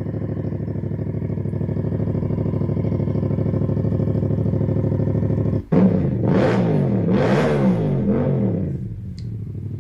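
Yamaha MT-07 parallel-twin motorcycle engine idling steadily, then blipped about five and a half seconds in: several quick throttle revs that rise and fall, with one more rev near the end.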